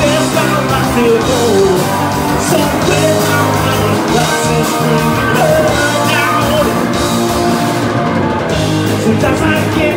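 Live rock band playing loud: electric guitar and drum kit, with a man singing into a microphone.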